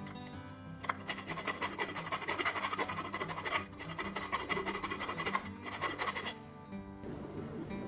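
Rapid, dense scraping strokes of a tool working the steel parts of a tin toy airplane, over background music; the scraping starts about a second in and stops abruptly about six seconds in.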